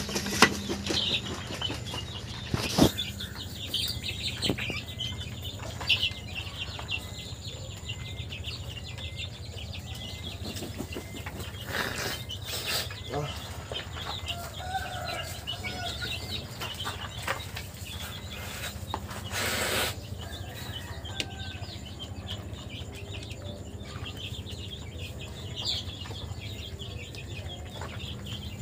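Silkie chickens pecking feed from a clay dish, a scatter of small quick ticks with occasional soft clucks. There is a brief rustle of feathers about two-thirds of the way through, over a steady low hum.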